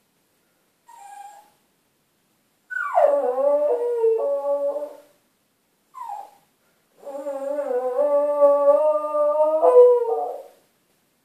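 Cairn terrier howling: a short faint call, then a long howl that starts high and slides down, a brief yelp, and a second, longer howl of about three and a half seconds. The owner puts the howling down to the dog wanting a female.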